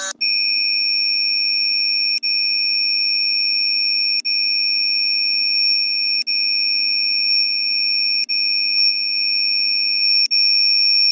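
Emergency alert alarm tone played back sped up: two steady, high, piercing tones sounding together, cut by a very brief dropout about every two seconds.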